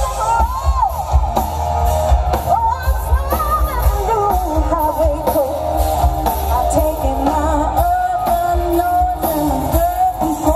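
A live rock band playing through large outdoor speakers: a singer's melody over heavy bass and drums.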